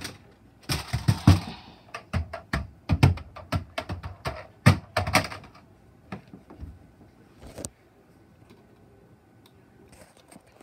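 Handling noise: a quick, irregular flurry of clicks, taps and knocks as small objects are handled, thinning out after about five seconds. Near the end a faint steady tone holds for about two seconds.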